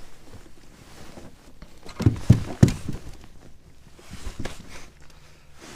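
Three heavy thumps in quick succession about two seconds in, then a few lighter knocks: handling noise while a freshly caught trout is held and unhooked.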